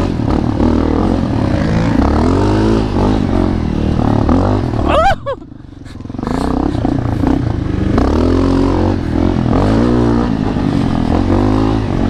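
Honda CRF250L's single-cylinder four-stroke engine being ridden hard on a dirt trail, its pitch rising and falling with throttle and gear changes. About five seconds in it briefly drops off the throttle, then picks up again.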